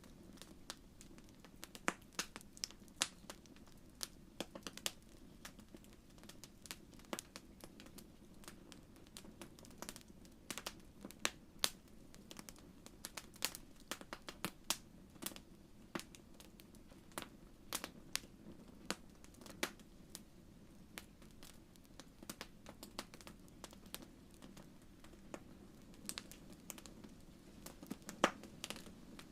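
Wood fire crackling in a fireplace: irregular sharp pops and snaps, several a second at times, over a low steady hum.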